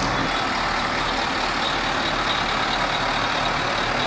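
Heavy fire-rescue crane truck's diesel engine idling steadily.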